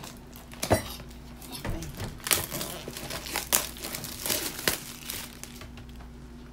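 Foil coffee sachet crinkling and rustling as it is handled, in a run of irregular crackles that dies away about five seconds in.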